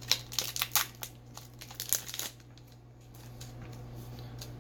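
Foil Pokémon booster pack wrapper crinkling and being torn open: a quick run of sharp crackles and rips over the first two seconds or so.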